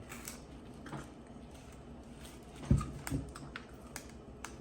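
A person chewing and eating, with scattered small mouth and utensil clicks and one short low thump about two-thirds of the way in.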